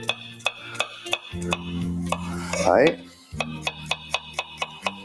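Small kitchen knife slicing garlic cloves on a wooden cutting board: a steady run of knife taps on the board, about three a second.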